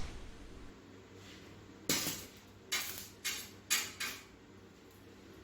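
Small metal pieces clinking and scraping against each other, about five short clatters in the second half, each fading quickly.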